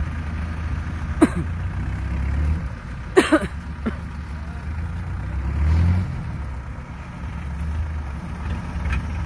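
Diesel engine of a Kubota DC-70 combine harvester running steadily with a low drone while the machine is bogged in mud. It swells briefly about six seconds in, and a few short sharp knocks come about one and three seconds in.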